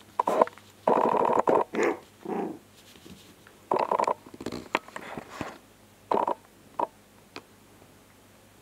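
A 3½-week-old puppy making small growls and grunts in a string of short separate bursts, mixed with rustles and scuffs as it scrambles about on a quilted pad.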